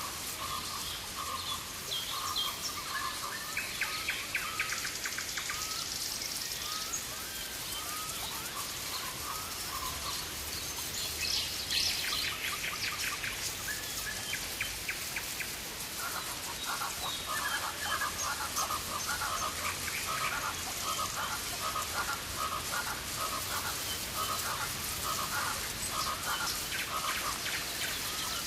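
Rainforest ambience: several birds calling over a steady hiss, with a falling series of notes about halfway through and a run of quick repeated notes in the second half.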